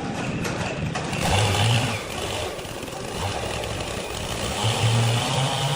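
Sawmill machinery running: a steady, loud mechanical din with a low motor hum that swells about a second in and again near the end.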